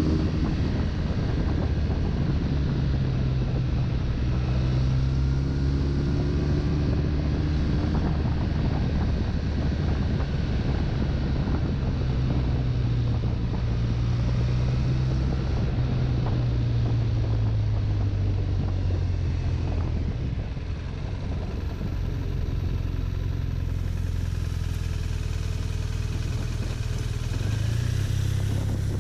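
BMW touring motorcycle's engine running at a steady cruise, with wind rushing over the microphone. The engine note eases down about two-thirds of the way through and picks up again near the end.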